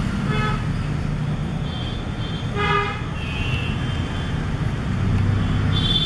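Steady road-traffic rumble with a brief vehicle horn toot about two and a half seconds in, and a few short, shrill high calls over it near the middle and the end.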